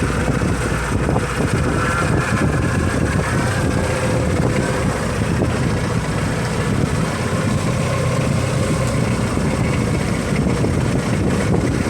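Fishing boat's engine running steadily under way.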